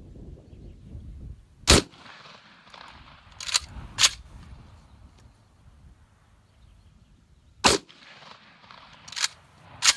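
Two blasts from a Vepr 12 12-gauge semi-auto shotgun firing 00 buckshot, about six seconds apart. Each shot is followed by two sharp metallic clacks as the bolt is racked back and forward by hand, because the gas puck has been removed and the gun no longer cycles itself.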